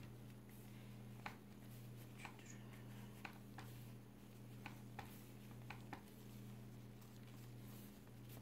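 Near silence: a low steady hum under faint, scattered soft ticks and rustles from nitrile-gloved hands pressing and smoothing fondant around a cake.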